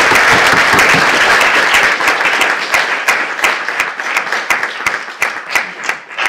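Lecture audience applauding: dense applause for the first couple of seconds, then thinning to scattered separate claps that die away near the end.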